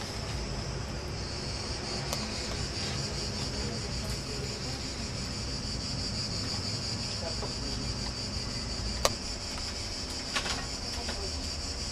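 A steady, high-pitched insect chorus, with a sharp click about nine seconds in and a softer one about a second and a half later.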